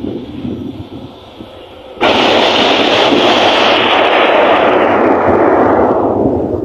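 Runaway grain-train wagons crashing at speed: a sudden loud crash about two seconds in that runs on as a heavy rumbling din for several seconds, its hiss fading near the end.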